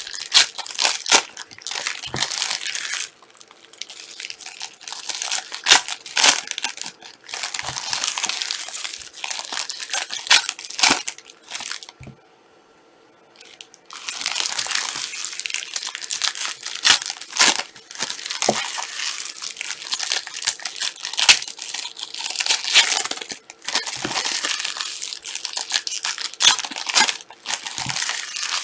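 Plastic wrapping crinkling and tearing in close, dense handling, with a pause of about two seconds around the middle.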